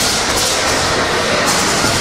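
Steam engine running steadily, with a hiss that swells about once a second, twice here, in time with its working.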